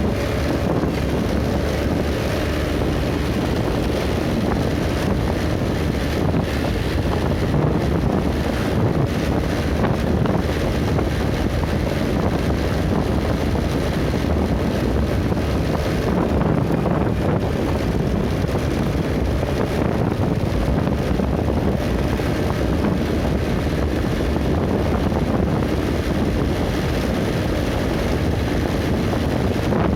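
Steady wind rush on the microphone over the even running noise of a moving vehicle travelling along a road.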